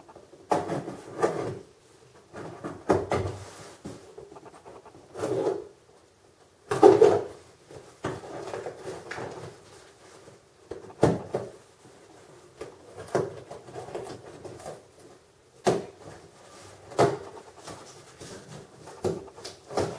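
Small knife blade slitting and scraping packing tape on a cardboard shipping box. The tape is cut and pulled in irregular short scrapes, rips and knocks a second or two apart.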